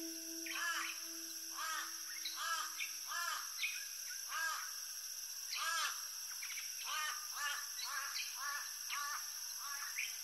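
A series of short animal chirps, each rising and falling in pitch, coming about once or twice a second over a steady hiss.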